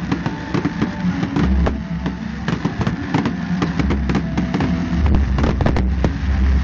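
Aerial fireworks going off: a dense, irregular stream of sharp cracks and pops over a low rumble, which grows louder near the end.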